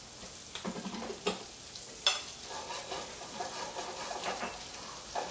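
Chopped red Italian garlic sizzling in butter in a stainless-steel skillet, stirred with a utensil that scrapes and knocks against the pan, with one sharp clink about two seconds in.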